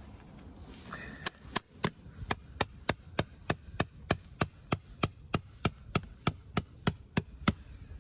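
A hammer driving a metal tent peg into the ground: about twenty steady, even strikes, roughly three a second, each with a bright metallic ring.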